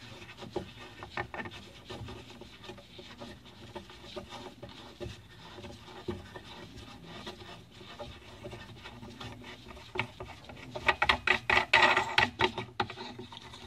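Hand-tightening a faucet's jam nut onto its threaded shank under a bathroom sink: rubbing, scraping and small clicks of hands working the nut. A run of fast clicking and rattling about eleven seconds in is the loudest part.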